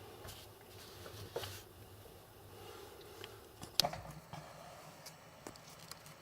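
Faint clicks and taps of laptop parts being handled during disassembly, with one sharper click a little before four seconds in.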